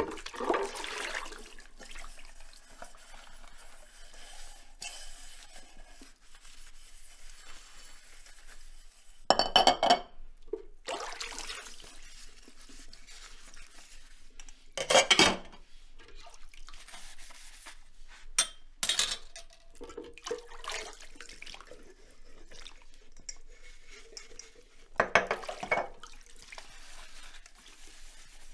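Dishes being washed by hand in a sink: plates, glasses and cutlery clinking and clattering against each other in water, with a few loud knocks of crockery set down or knocked together.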